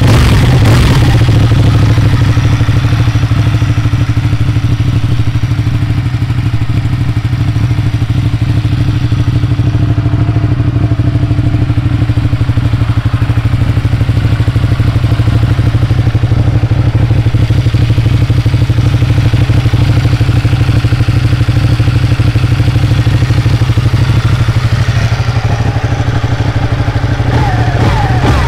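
Ducati Panigale 899's Superquadro V-twin engine idling steadily. It comes down from a rev in the first second and is revved again at the very end.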